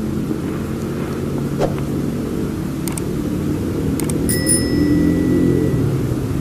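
Steady low drone of an engine running. About four seconds in come a couple of sharp clicks, then a clear bell-like ding lasting about a second and a half: a subscribe-button click and notification-bell sound effect.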